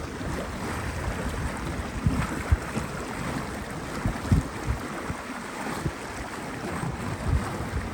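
Small open canal tour boat under way: a steady wash of water and motor noise, with wind now and then thumping low on the microphone.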